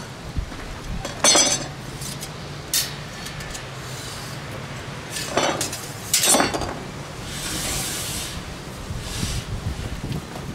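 Steel square tubing clanking against metal as it is handled and set into a chop saw's vise: a few sharp metallic clanks, the loudest about a second in and again about six seconds in.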